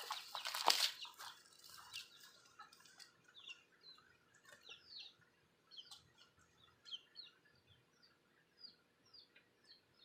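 Wild birds chirping: many short, high calls that slide downward, repeated on and off. A brief rustle of handling noise comes in the first second.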